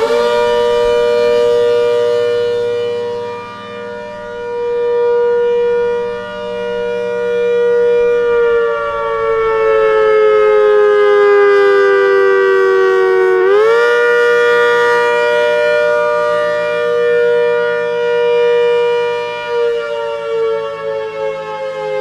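ACA Hurricane 130 MKII outdoor warning siren sounding the attack signal, a loud two-note chord that wavers slowly. It holds its pitch, slides down over several seconds, jumps back up about halfway through, and begins sliding down again near the end.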